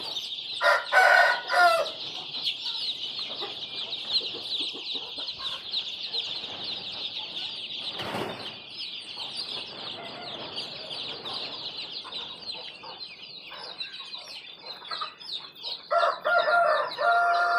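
A flock of desi chickens with constant high-pitched cheeping and clucking. A rooster crows about a second in and again near the end. There is one short noise burst about halfway.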